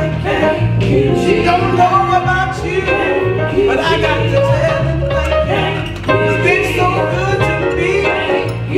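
A woman singing a church song into a microphone over an instrumental backing track with a steady, stepping bass line.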